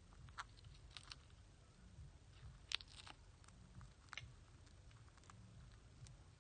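Near silence with a low hum and a handful of faint, scattered sharp clicks and taps, the loudest a little under three seconds in.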